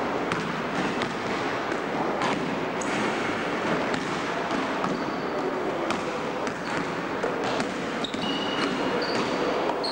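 Basketball bouncing on a hard gym floor during play: irregular sharp thuds over a continuous noisy hall background, with a few short high squeaks near the end.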